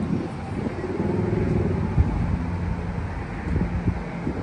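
R211S subway car standing at the platform, its onboard equipment giving a steady low hum, with a faint tone that rises and falls a second or so in. There is a short thump about two seconds in.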